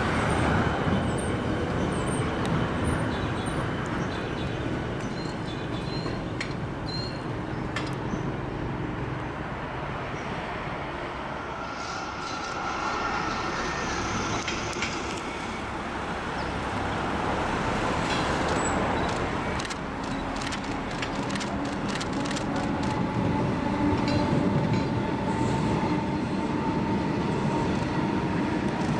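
Electric suburban trains passing over a steel rail-over-road bridge: the first train's running noise fades by about ten seconds in, then a second train approaches and crosses, its steady motor whine rising from about eighteen seconds in.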